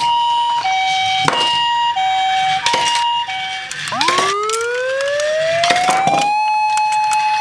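Ambulance siren sound: a two-tone high-low alternation, each note about two-thirds of a second, for the first few seconds. Then it switches about four seconds in to a wail that rises slowly and holds at the top. A few sharp clicks and knocks sound over it.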